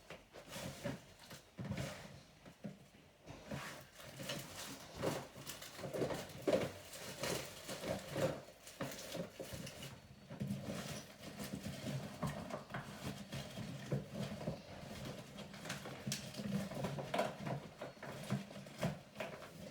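Rummaging through craft supplies in search of glue sticks: irregular rustling, small knocks and clicks of objects being moved and handled.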